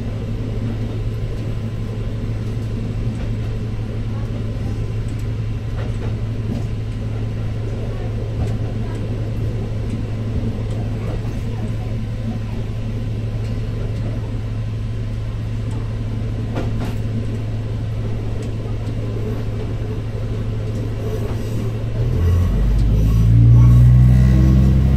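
Diesel railcar running with a steady low engine drone. Near the end the engine note steps up in pitch and grows louder as the throttle opens.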